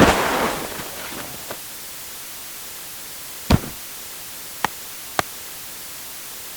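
Baseball sound effects over a steady hiss: a sharp impact with a short rushing tail at the start, a single heavier thud about three and a half seconds in, then two light clicks.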